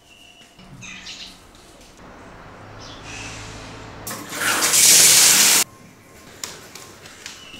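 A loud rush of running water, like a flush or a tap turned full on, starting about four seconds in, lasting about a second and a half and cutting off suddenly. Faint household sounds come before it.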